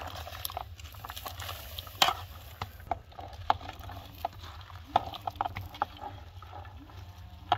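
Chopped raw cabbage pushed by hand off a metal colander into an enamel pot of broth: crisp rustling and irregular crackles as the leaves slide and drop into the liquid. There are scattered sharp clicks, the loudest about two seconds in.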